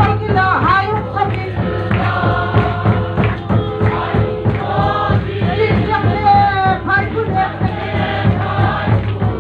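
Crowd of men and women singing a hymn together in lengkhawm style, with a steady beat underneath.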